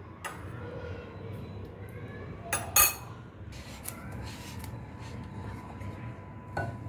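A few light clinks and knocks of utensils against dishes over low background noise, the loudest about three seconds in.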